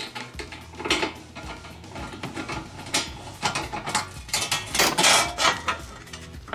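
Clicks, scrapes and metallic clatter of a screwdriver working the screws out of a dishwasher's kick plate and the plate being handled, loudest about five seconds in.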